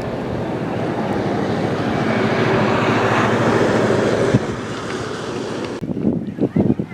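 A motor vehicle passing, its engine and tyre noise building to a peak and then fading. Near the end, wind buffets the microphone in irregular gusts.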